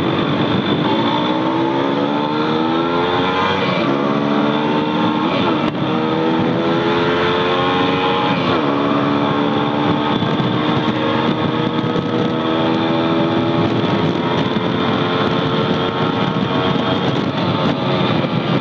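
Motorcycle engine heard from the rider's seat, accelerating with its note rising and dropping at three quick upshifts in the first nine seconds, then holding a steady pitch at cruising speed. Wind and road noise rush over the microphone throughout.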